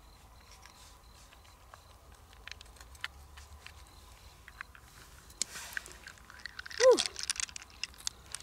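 A knife blade working into the soft flesh of a large freshwater pearl mussel, a scatter of small clicks, then fingers rummaging and pulling the flesh apart. A short vocal exclamation with a falling pitch about seven seconds in is the loudest sound.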